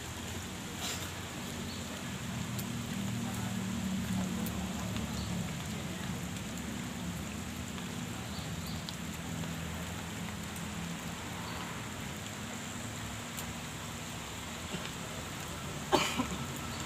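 Steady outdoor hiss with a low hum underneath, and a sharp knock about a second before the end.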